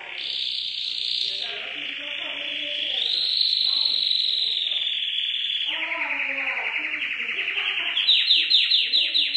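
Domestic canary singing one long unbroken song of rolling trills, closing in a fast run of repeated notes near the end.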